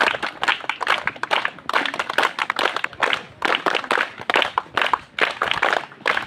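A group of children clapping their hands continuously and unevenly, welcoming guests as they walk past.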